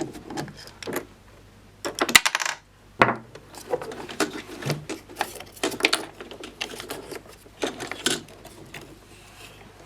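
Clicks, knocks and clatter of hard plastic and metal parts being handled. A quick rattling run of clicks about two seconds in, and a sharp knock about a second later.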